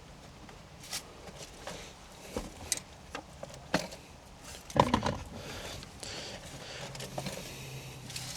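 Wire cutters snipping and plastic connectors clicking as old airbag wiring plugs are cut off, a few sharp snaps with handling noise in between, the loudest just under five seconds in. A low steady hum comes in about six seconds in.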